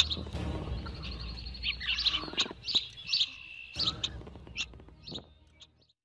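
Wild birds chirping and calling in short, repeated high notes over a low steady outdoor rumble, fading out near the end.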